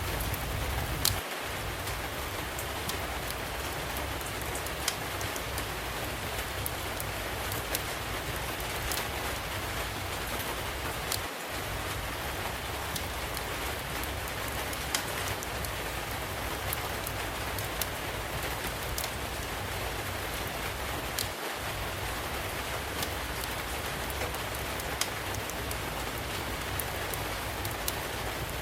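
Steady rain hiss with a wood fire crackling over it, sharp pops coming every second or few.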